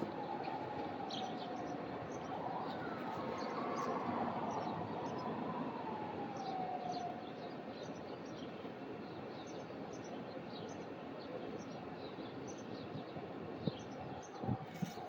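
A siren wailing, its pitch sliding slowly up and down before it fades about halfway through, over a steady outdoor hiss. Small birds chirp in short, high notes throughout, and a couple of knocks sound near the end.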